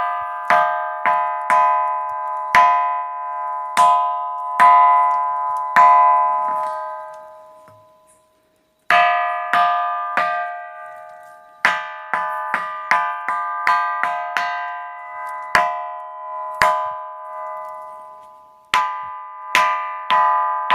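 The Pedra do Sino ringing rock being struck over and over, each blow ringing out like a church bell with several bright tones that die away. The strikes come irregularly, sometimes in quick runs. The ringing stops for about a second some eight seconds in, then the strikes resume.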